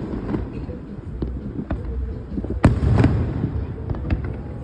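Aerial fireworks bursting: a sharp bang at the start, a few smaller cracks, and the loudest boom about two and a half seconds in, followed by a rolling rumble.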